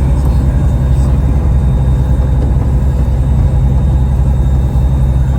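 Engine running steadily with a loud low rumble.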